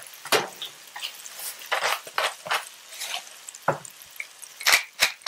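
Sliced mushrooms and green onions sizzling in butter and oil in a nonstick frying pan, with scattered pops and crackles. Near the end a quick run of sharp clicks, about three a second.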